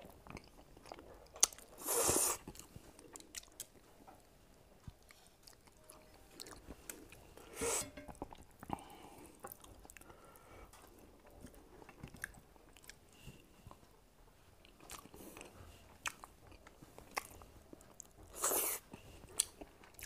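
A man chewing and smacking his lips as he eats fish with his hand, close to a clip-on microphone: soft wet mouth clicks throughout, with three louder short noisy sounds about two seconds in, near eight seconds and near the end.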